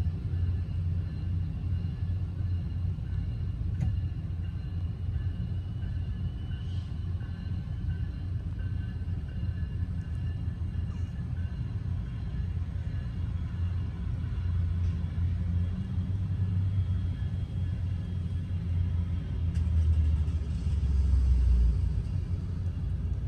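Steady low vehicle rumble, growing louder and deeper for a couple of seconds near the end.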